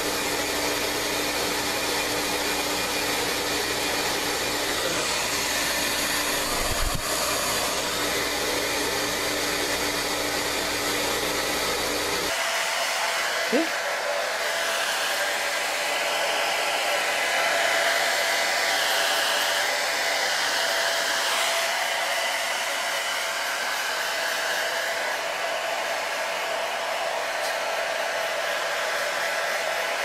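Hand-held hair dryer blowing steadily. About twelve seconds in the sound changes abruptly as its low hum drops away, leaving a thinner rushing air noise.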